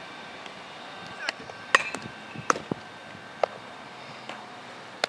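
Baseball fielding practice: about half a dozen sharp cracks and pops of a baseball being hit and smacking into leather gloves, spaced irregularly, the loudest a little under two seconds in.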